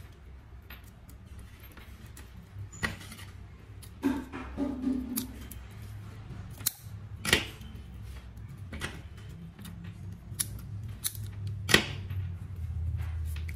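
Small scissors snipping the fine braided shield strands of a coaxial cable around a metal F-connector: a scatter of short, sharp snips and small metallic clicks, three of them louder than the rest.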